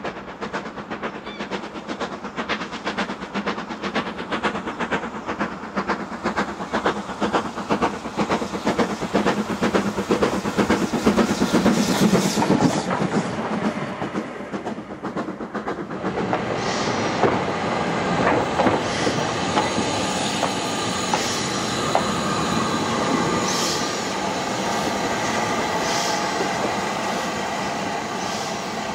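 LMS Black 5 two-cylinder 4-6-0 steam locomotive working hard up a 1-in-49 gradient, its rapid exhaust beats growing louder as it nears and passes. About halfway through this gives way to the train running more steadily, with occasional clicks from the wheels.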